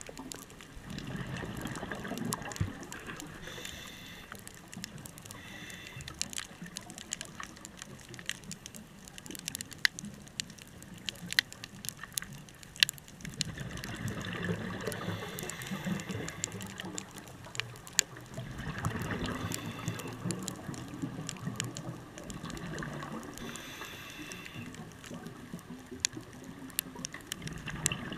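A scuba diver breathing underwater through a regulator: exhaled bubbles rumble out in several long bursts, with scattered sharp clicks throughout.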